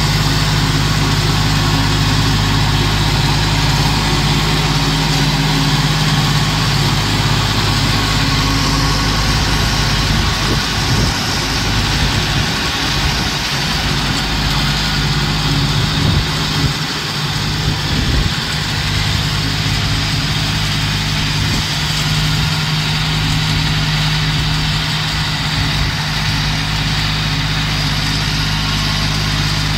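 1987 Huskee garden tractor's engine running at a steady speed as the tractor drives across the lawn.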